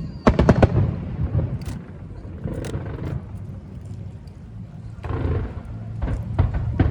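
Fireworks shells bursting: a quick run of sharp cracks just after the start, a few scattered bangs in the middle, and another cluster near the end, over a low rumble.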